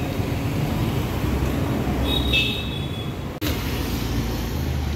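Steady low rumble of street traffic, with a brief high-pitched squeal about two seconds in. The sound cuts out for a split second about three and a half seconds in.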